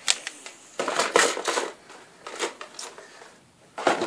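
Plastic storage bins and their contents being handled and moved about on a bookshelf: rustling and clattering in several short bursts, the busiest near the end as a green plastic bin is set onto a shelf.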